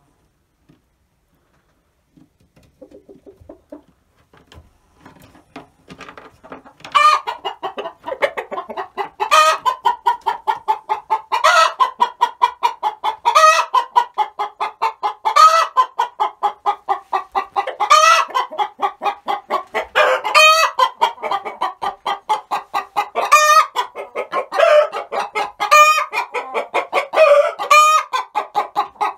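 Hen cackling her egg song: a few faint clucks at first, then from about seven seconds in a rapid run of clucks broken every couple of seconds by a loud, rising squawk, the call a hen gives around laying an egg.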